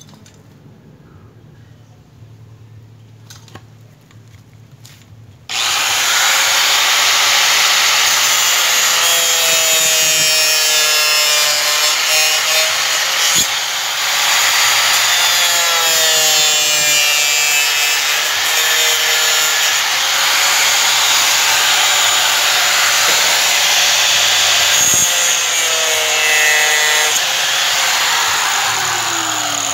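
A power tool cutting through the plastic frame of a Mitsubishi Strada front grille. It starts suddenly about five seconds in and runs steadily, its pitch sagging and rising as it bites, then winds down with a falling tone near the end.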